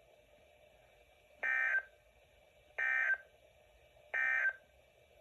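Emergency Alert System end-of-message signal: three short electronic data bursts about 1.4 s apart, the digital code that marks the end of the tornado warning broadcast.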